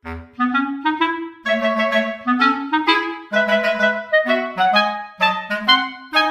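Background music: a woodwind melody of short, separate notes, starting up again right at the beginning after a brief gap.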